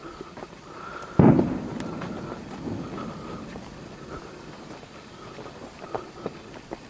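A single sudden bang about a second in that dies away over about a second, with a few faint clicks near the end.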